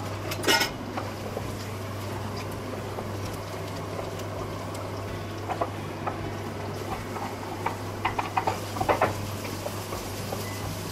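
Kitchen utensil clatter: a jar or container clinks about half a second in, then a wooden spatula scrapes chopped onions off a wooden board into a metal kadai and knocks and stirs against the pan in a cluster of sharp clacks around eight to nine seconds in. The onions start a light sizzle in the hot oil, over a steady low hum.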